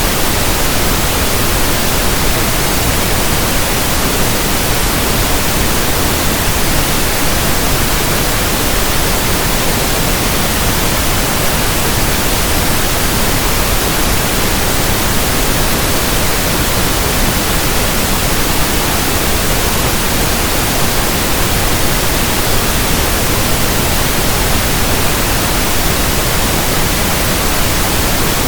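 Synthetic pink noise: a steady, unchanging hiss at an even level, with no tones or events in it.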